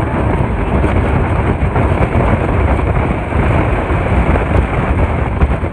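Speedboat running flat out: a loud, steady rumble of wind on the microphone mixed with rushing water and the boat's engine.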